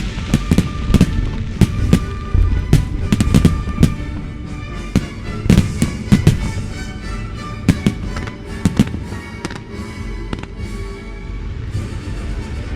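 A fireworks display: aerial shells and batteries go off in rapid, irregular bangs over music. The bangs are densest in the first nine seconds or so and then thin out.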